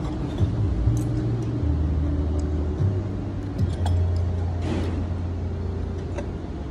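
Restaurant dining-room background: a steady low rumble that shifts in level a few times, with a few light clinks of cutlery and glassware.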